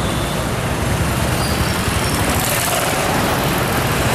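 Street traffic noise: vehicle engines, motorcycles among them, running in a steady, loud din with a low rumble.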